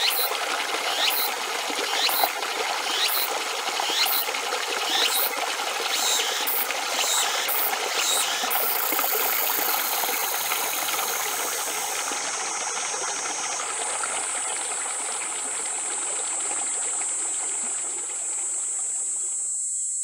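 River water rushing and splashing over rocks in a shallow rapid. Over the first several seconds a sharp tick repeats about once a second, coming a little faster toward the end of that stretch, and later a steady high-pitched hiss lies over the water. The water sound stops abruptly just before the end.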